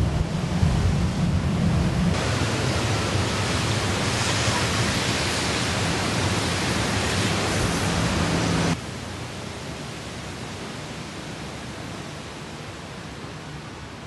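Wind rumbling on the microphone, then a steady loud hiss of heavy rain that cuts off suddenly about nine seconds in, leaving a fainter hiss.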